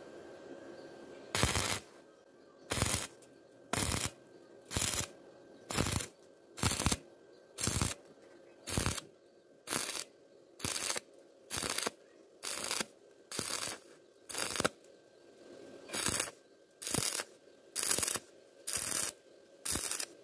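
Stick-welding arc on galvanized iron, crackling in short bursts of about half a second, roughly one a second, as the arc is struck and broken again and again to stitch a repair bead over a bad weld.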